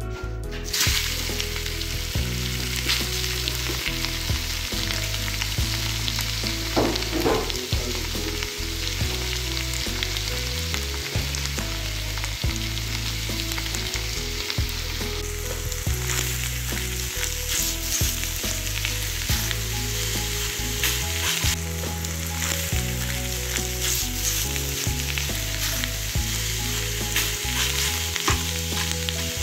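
Chopped pork frying in a wide metal pan, a steady sizzle with small crackles as it renders out its fat. The sizzle starts about a second in, as the pieces land in the pan.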